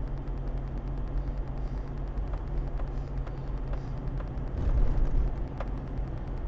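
Steady road and engine rumble heard from inside a car cruising at about 55 km/h, with a few faint ticks and a brief louder low rumble about five seconds in.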